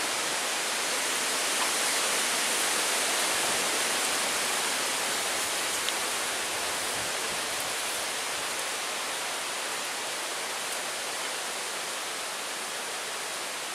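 A steady, even rushing hiss with no distinct events, fading a little and cutting off abruptly near the end.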